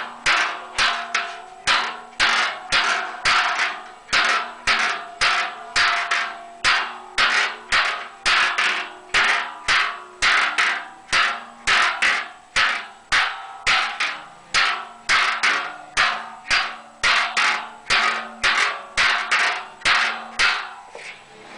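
Hand hammer striking a large sheet-metal cauldron in steady blows about two a second, each blow leaving the body ringing. The coppersmith is opening out the cauldron's skirt (etek açma). The hammering stops just before the end.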